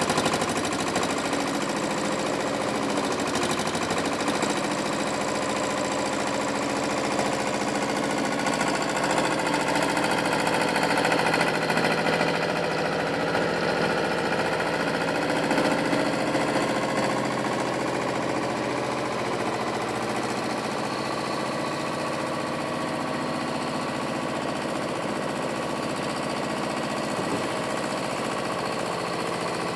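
Diesel farm engines running steadily, with the small front loader's engine speed rising and falling in the middle as it digs into and lifts manure.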